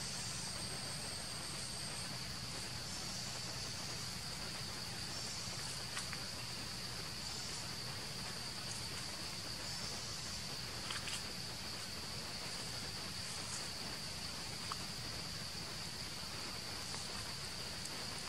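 Insects in the forest making a steady, high continuous drone, with a few faint clicks here and there.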